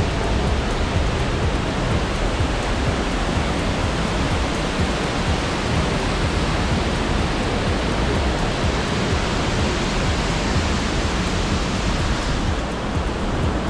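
Hammersbach mountain torrent rushing through the gorge: a loud, steady wash of white water.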